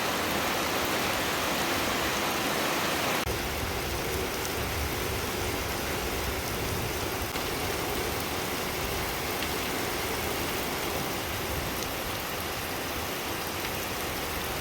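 Steady heavy rain, an even hiss that shifts slightly deeper about three seconds in.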